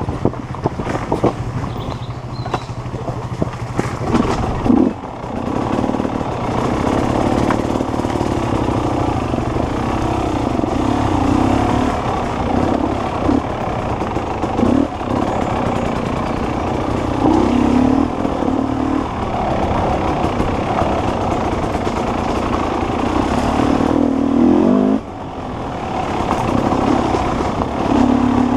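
Off-road dirt bike engine under way, its note rising and falling with the throttle. The engine drops off sharply about five seconds in and again near twenty-five seconds, then picks back up.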